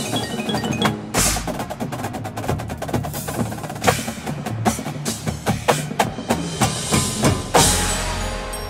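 Drum corps drumline of snare, tenor and bass drums playing a fast percussion passage, with sustained pitched tones ringing underneath. It ends near the end on a loud accented hit that rings out and fades.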